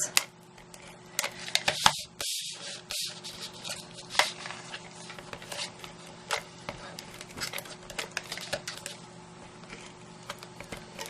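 Adhesive tape gun (Stampin' Up! Fast Fuse) being run along small cardstock tabs: scattered clicks and taps, with a short rasping burst of tape laid down about two seconds in.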